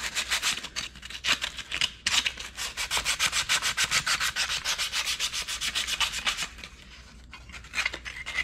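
Hand wire brush scrubbing surface rust off a steel emergency brake lever in rapid back-and-forth strokes, about five or six a second. There is a short break about two seconds in, and the strokes turn sparser and quieter near the end.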